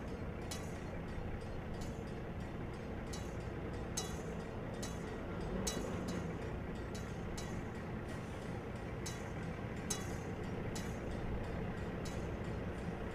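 A steady low mechanical rumble of a moving vehicle, with a run of sharp, irregular high clicks about two a second.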